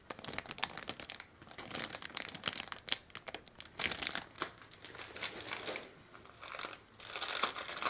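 Plastic bags crinkling as bagged plastic model-kit sprues are handled, an irregular run of crackles and rustles throughout.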